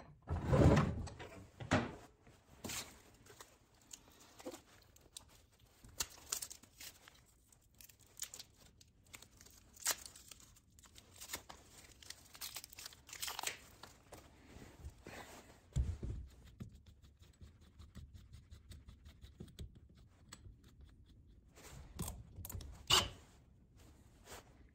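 Handling noises at a wooden workbench: a heavy cast-iron bench vise shifted across the bench top, loudest near the start, then scattered rustling, taps and clicks, a low thump about two-thirds through and a few sharp knocks near the end.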